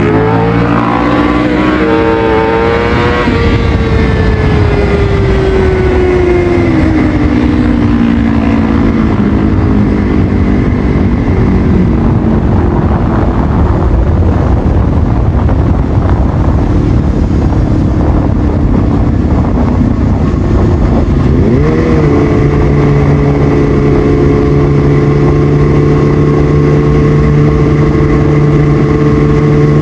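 Kawasaki ZX6R's inline-four through a Yoshimura exhaust, revving up in the first couple of seconds and then falling in pitch as the throttle comes off. From about two-thirds of the way in it holds a steady engine note that slowly climbs.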